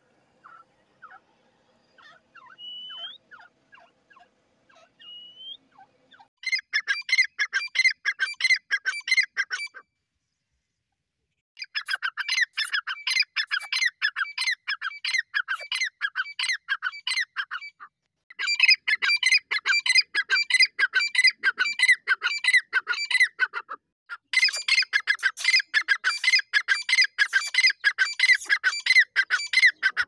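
Grey francolin calls: after a few faint notes and two short rising whistles, long runs of rapid, loud, repeated notes come in four stretches with brief pauses between them.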